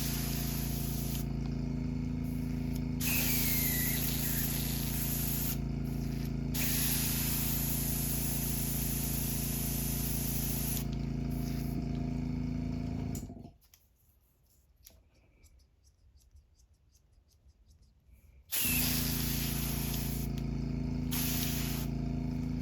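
Airbrush compressor running with a steady hum while the airbrush hisses in on-off bursts of spraying air. The compressor cuts out a little past halfway, is silent for about five seconds, then starts up again with the hiss.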